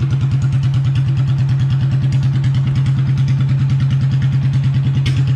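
Small engine of a miniature parade roadster idling steadily, with a rapid, even pulse. A brief click comes near the end.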